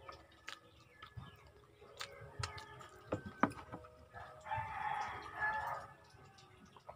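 A rooster crows once, a single call of about a second and a half starting a little past halfway. Before it come scattered small clicks and smacks of eating fish and rice by hand.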